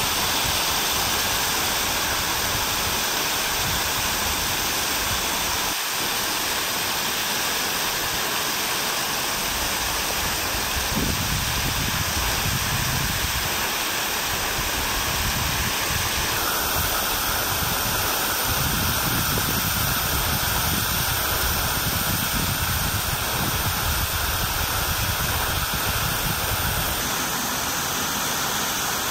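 Steady rush of water falling in a garden fountain cascade, an even hiss with a low rumble that comes and goes.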